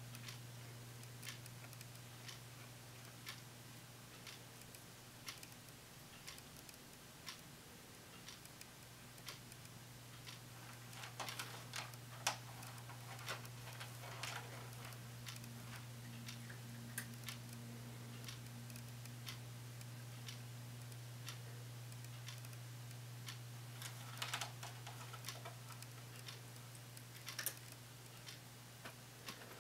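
A clock ticking steadily, about once a second, over a constant low hum, with a few louder scattered clicks about midway and near the end.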